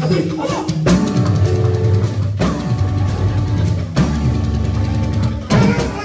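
Live church band music with drum kit, bass and held keyboard chords playing a driving dance beat. Sharp hits come about every one and a half seconds. Singing gives way to the instruments about a second in.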